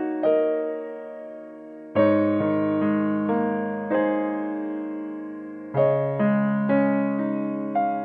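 Background keyboard music: a slow piano melody, each note or chord struck and left to fade.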